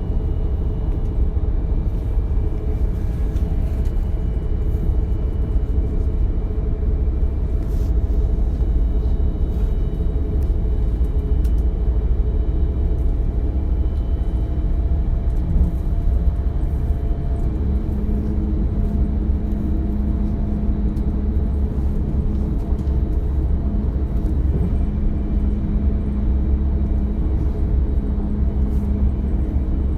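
DB Class 425 electric multiple unit heard from inside the passenger compartment while running: a steady rumble of wheels on track, with thin high tones coming and going, and a steady hum that sets in a little past halfway.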